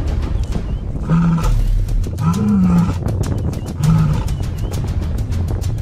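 Three short, low animal calls, about a second apart starting a second in, from the hyena and Cape buffalo clash. They come over a constant crackle and low rumble.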